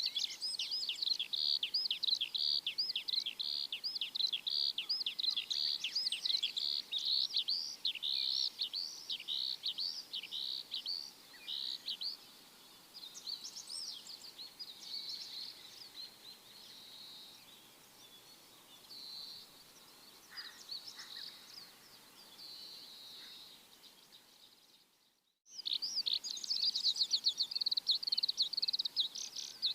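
Small birds chirping rapidly, many quick sweeping chirps in dense runs, softening to sparser trills in the middle. The sound cuts out for a moment near the end, then the rapid chirping resumes.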